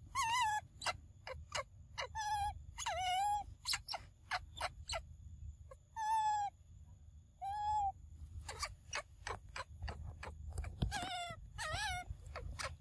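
A young macaque giving short, clear coo calls, the begging calls of a baby monkey. There are about eight coos, each under half a second and dipping slightly in pitch, with sharp clicks scattered between them.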